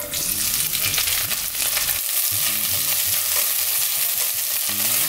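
Fresh drumstick (moringa) leaves dropped into hot coconut oil, sizzling as they are stirred in the pan with a spatula, wilting in the oil. The sizzle starts suddenly as the leaves go in and holds steady.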